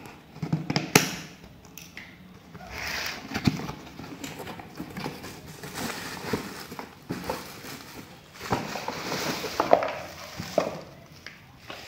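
Scissors snipping through the tape on a cardboard appliance box, then cardboard and plastic packaging rustling and knocking as the box is opened and the bagged sandwich maker lifted out. Sharp snips and knocks come throughout, the loudest about a second in.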